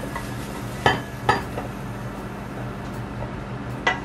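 Stainless steel frying pan knocking against a glass bowl as fried mushrooms are tipped and scraped out of it: three sharp clinks, two close together about a second in and one near the end, over a low steady hum.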